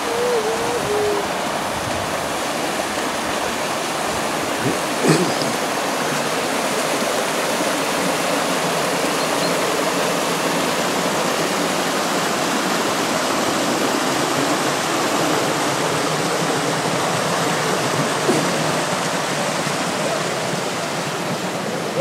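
Steady rushing of a shallow mountain stream running over rocks in small cascades, with a single brief knock about five seconds in.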